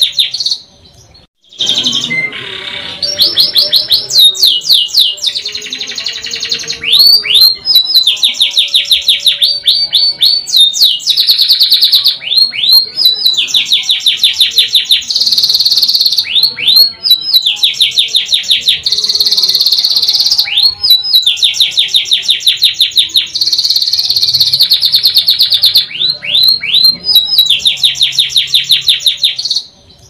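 Domestic canary singing a long song, one stretch after another of rapid rolling trills and quickly repeated notes, broken up by short downward-sliding whistles. There is a brief pause just after the start, then the song runs on without a break.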